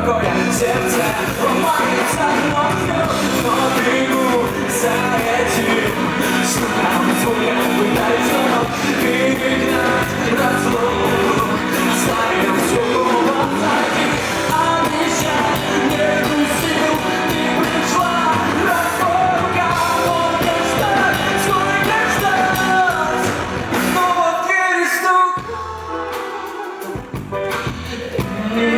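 Live rock band with a male singer, played loud. About 24 seconds in the bass and drums drop out and it gets quieter for a few seconds, then the full band comes back in just before the end.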